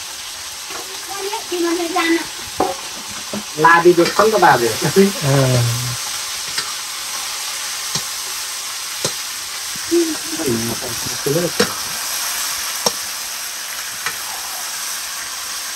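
Chopped rabbit meat sizzling as it fries in a metal wok over a wood fire, a steady hiss, while it is stirred with a metal ladle. Occasional sharp clicks come through.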